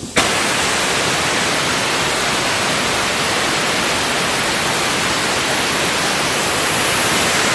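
PFI School Hybrid hybrid rocket engine firing on its static stand: it lights abruptly a fraction of a second in and then burns with a loud, steady rushing hiss.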